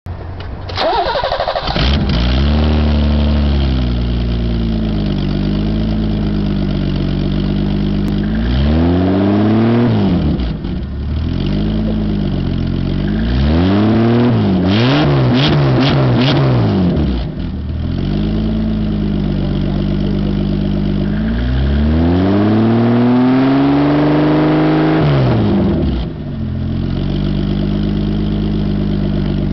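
Car engine starting about a second in, then idling and revved three times, the middle time in several quick blips, each rev falling back to idle. The engine runs through an exhaust system broken by a loose driveshaft.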